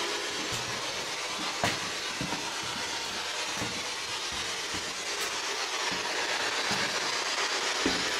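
PSB-7 spirit box sweeping through radio channels: a steady hiss of static broken by short, irregular clicks and blips.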